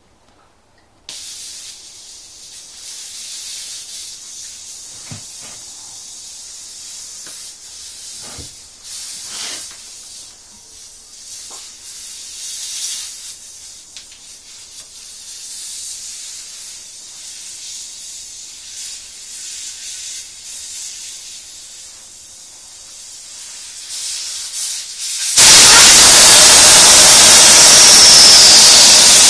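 Air hissing out of a Triumph Bonneville motorcycle tyre through its valve as the valve core is unscrewed to deflate the tyre. A thin hiss starts about a second in, with a few faint clicks, and near the end it turns into a much louder rush of air as the core comes free.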